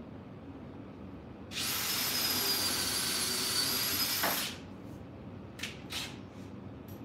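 Cordless drill running for about three seconds as a steady whine that dips slightly at the end, driving a screw while the router table fence is installed. Two light clicks follow.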